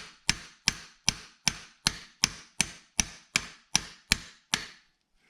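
Hammer tapping on a socket set on a star nut, driving the nut down into a bicycle fork's steerer tube: a steady run of about a dozen sharp taps, a little under three a second, each ringing briefly, stopping about four and a half seconds in.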